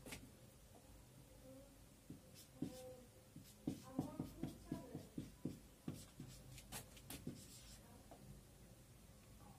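Marker pen writing on a whiteboard: a run of faint short strokes and taps as letters are written, busiest in the middle and dying away near the end.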